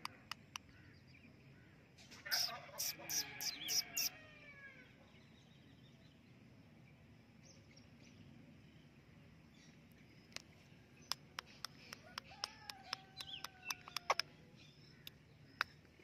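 Rose-ringed parakeet chattering: a quick bout of gliding calls mixed with sharp clicks about two seconds in, then a second, longer gliding call with clicks around twelve seconds in. Scattered sharp clicks run between the bouts.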